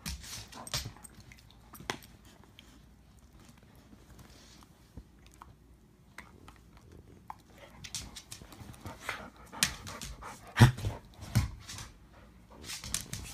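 A pit bull puppy and a Labrador puppy play-wrestling, mouthing at each other and scuffling, with many short sharp noises that come thicker and louder in the second half, loudest about ten to eleven seconds in.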